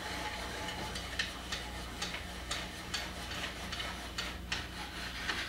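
Homemade hand-cranked lead-screw tilt jig on a Seyco ST-21 scroll saw being turned to tilt the head, giving a string of light, irregular clicks and ticks.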